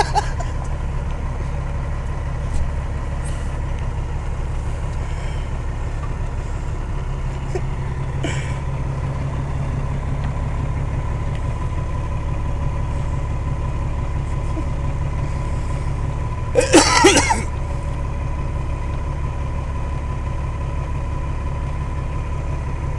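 Log truck's diesel engine droning steadily as heard from inside the cab while driving, with a faint steady whine over it. A brief loud voice-like burst cuts in about seventeen seconds in.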